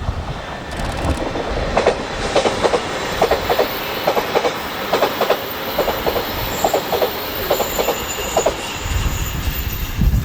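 A 381-series electric limited express train passing close by, its wheels clacking over the rail joints in quick pairs as each bogie crosses them, over a steady rolling rumble.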